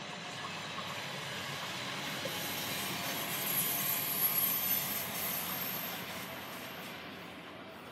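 An NS electric passenger train running past on the line. The noise of its wheels on the rails builds to its loudest about halfway through, with a thin high hiss at the peak, then fades as the last car goes by.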